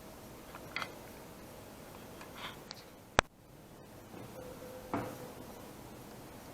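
Quiet room tone with a few faint ticks and taps, and one sharp, short click a little after three seconds in.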